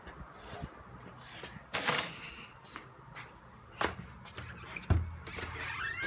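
Scattered knocks and thumps with faint rustling, including one heavy low thud about five seconds in. Near the end comes a short rising squeak.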